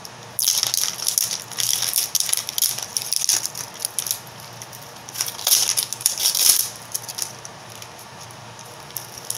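Plastic wrap crinkling and crackling in bursts as it is picked and peeled off a Mini Brands toy capsule, quieter for the last couple of seconds.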